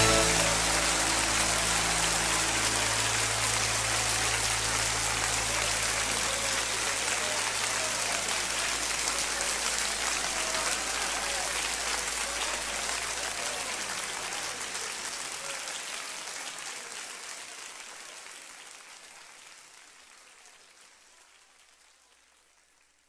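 Audience applauding after a song, with a low held note from the band lingering beneath it. The applause fades out slowly over about twenty seconds to silence.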